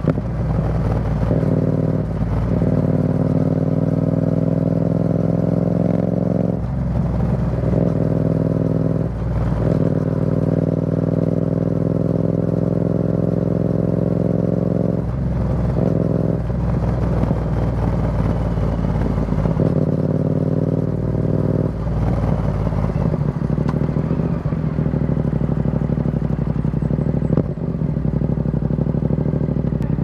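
2023 Yamaha XSR700's parallel-twin running through an Akrapovic carbon full exhaust system with the dB killer removed, heard from the rider's position while cruising. The engine note holds steady, with several brief dips where it breaks off and picks up again.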